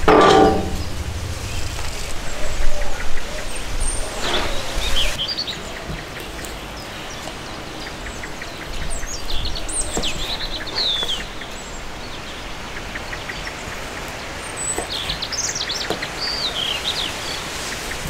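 A cast iron skillet set down on a metal grill grate with a clank and a short ring at the start. Later a kitchen knife slices through a slab of pork fat on a wooden cutting board in faint repeated strokes, while small birds chirp now and then.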